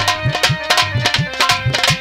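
Nautanki folk-theatre accompaniment played without singing: a hand drum beaten in rapid strokes, its low strokes bending in pitch, over held melody tones.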